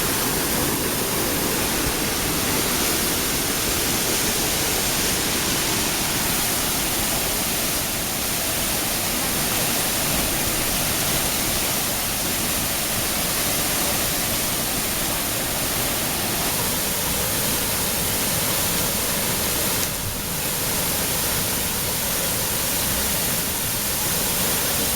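Waterfall pouring down, a loud, steady rush of falling water with a brief slight dip about twenty seconds in.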